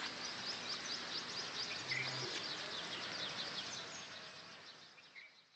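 Small birds chirping and twittering quickly and continuously over a steady outdoor hiss, fading out near the end.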